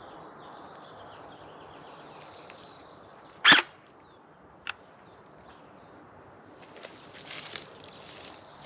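An electric gel blaster fires a single shot about a third of the way in, a short sharp burst, with a fainter click about a second later. Small birds chirp repeatedly in the background throughout.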